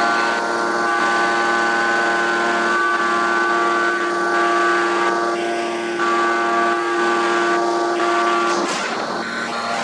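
1250-ton hot forging hydraulic press working under load: a loud, steady whine of several tones from its hydraulic system over a haze of machine noise, cutting off suddenly near the end.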